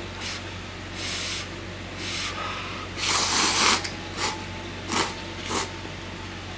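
A person slurping instant cup ramen noodles: several separate noisy slurps, the longest and loudest about three seconds in, followed by shorter ones.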